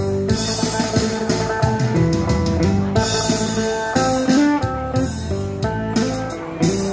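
Phin, the plucked lute of northeastern Thailand, playing a quick melody of short plucked notes over sustained low notes.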